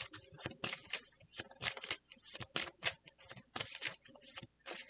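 A deck of tarot cards being shuffled by hand: quick, irregular soft clicks and pattering.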